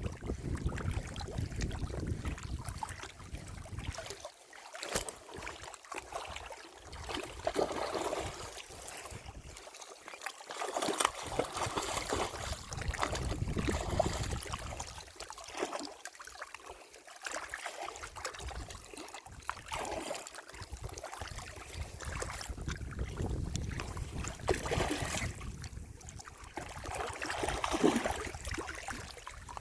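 Water lapping and splashing in irregular small bursts, with gusts of wind buffeting the microphone that come and go.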